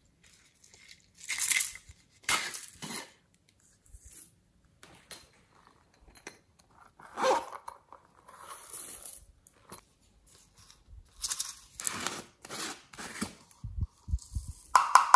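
Close-up handling of plastic and rubber toys and containers: a string of short rustles, scrapes and squeaks with pauses between them.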